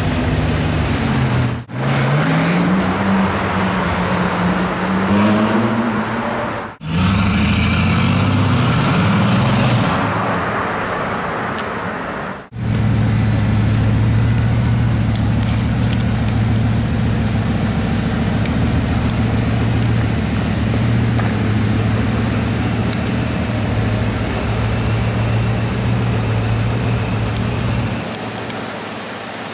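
Bugatti Veyron's quad-turbo W16 engine through an aftermarket sports exhaust, in several short clips. In the first seconds the engine note climbs as the car pulls away, then wavers. From about halfway it runs on at a steady low note at low revs.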